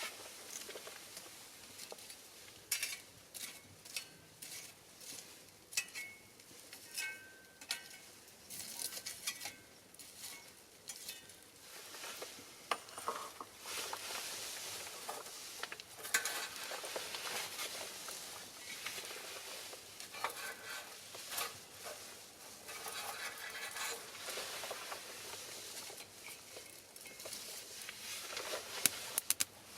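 Pine cones and cherry branches burning in a small steel fire stand, crackling with irregular sharp pops over a steady hiss.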